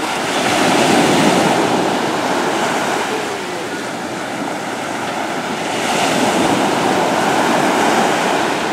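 Small waves washing onto a sandy beach, the surf swelling louder about a second in and again around six seconds in.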